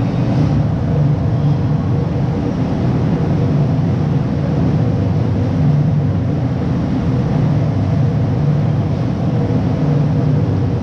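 A steady, loud low hum with a rumble, unbroken throughout, with no shots or voices standing out.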